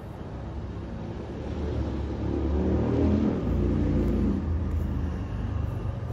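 A road vehicle passing over the highway bridge, its rumble and engine hum building to a peak about three seconds in and then fading.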